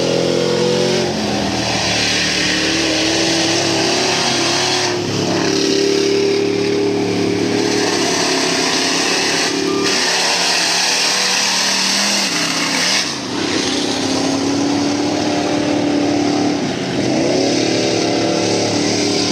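Mud-racing pickup truck engine at high revs, the pitch climbing and falling with the throttle as the truck slides through the mud. About two-thirds of the way through, the revs drop briefly and then climb again.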